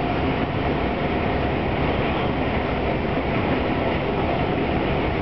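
Tobu 200 series electric train car running at speed, heard from the vestibule: a steady rumble of wheels on rail and running gear, with a faint steady whine from its traction motors, the ones reused from the 1720 series DRC.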